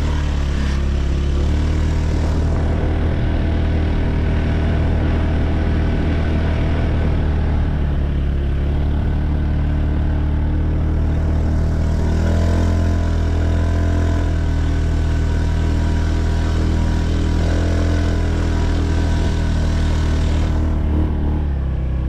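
Honda Beat FI 110cc scooter's single-cylinder engine running steadily under way, its pitch shifting slightly a few times.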